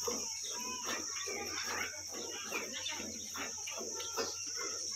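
Milk squirting into a steel bucket as a cow is hand-milked, in quick even strokes of about three a second, over a steady high-pitched hum.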